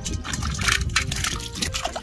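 A live tilapia thrashing in a steel bowl of water, splashing and slapping the water in quick irregular bursts, over background music.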